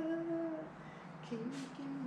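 A person humming a few notes of a tune: one long held note, then several shorter, lower notes.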